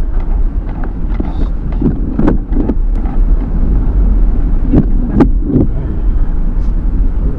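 Car interior noise while driving slowly: a steady low engine and tyre rumble, with a few sharp knocks in two clusters about two to three seconds and five seconds in.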